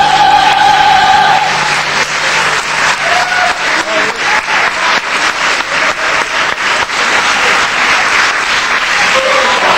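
Singers hold a final sung note that breaks off about a second and a half in, then an audience applauds.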